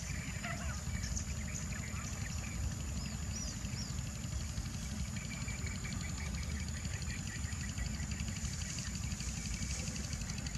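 Open-field ambience: a steady low rumble under crickets or other insects, which keep up a high steady whine with fast even pulsing. A few short bird chirps come about three seconds in.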